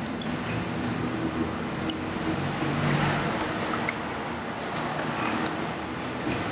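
Steady low rumble with a hum in it, like distant traffic, swelling slightly about halfway through, with scattered faint small clicks.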